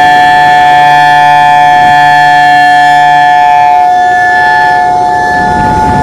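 Federal Signal EOWS 612 electronic outdoor warning siren sounding its steady Alert tone, a loud, unwavering chord of two notes from its rotating six-horn array.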